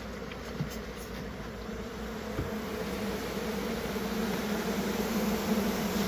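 A disturbed honey bee colony buzzing in a steady hum, slowly growing louder, as the bees are chased out of a cut-open nest cavity. Faint click near the start.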